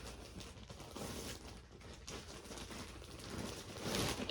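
Plastic packaging rustling and crinkling as clothes are handled and unwrapped, loudest near the end.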